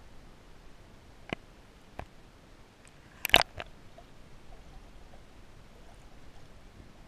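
Muffled hiss of a camera recording underwater, broken by a few sharp knocks: one a little over a second in, another at two seconds, and a loud double knock just over three seconds in, with a fainter one right after.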